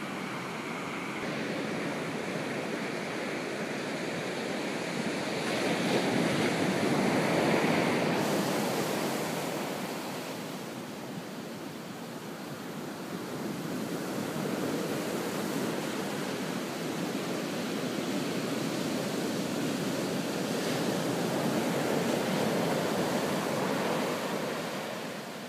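Ocean surf: waist-high waves breaking and washing up the sand in a steady rush, swelling louder about six seconds in and again near the end.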